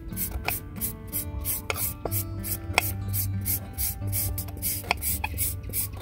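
Kitchen knife slicing small green eggplants on a bamboo cutting board, each cut landing as a sharp knock on the board at irregular intervals, over background music with a steady beat.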